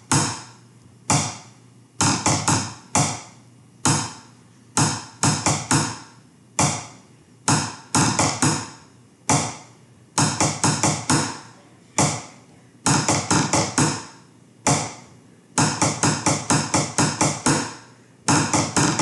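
Drumsticks on a kitchen table top playing a snare drum exercise of buzz rolls and single strokes. Quick clusters of strokes, the buzzed five-, nine- and seventeen-stroke rolls, alternate with separate taps in a steady pulse.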